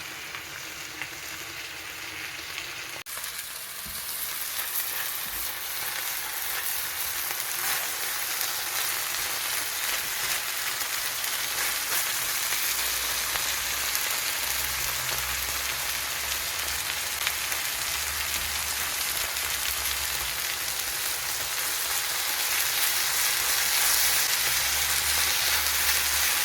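Haddock and vegetables frying in olive oil in a pan: a steady sizzle that turns louder about three seconds in and keeps going.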